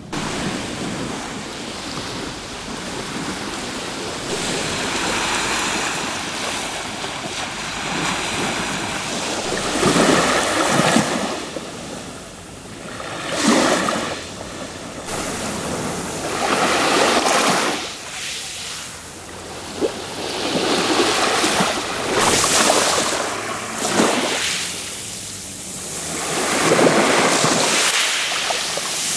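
Small waves breaking and washing up over a pebble beach, the surf swelling and falling every few seconds.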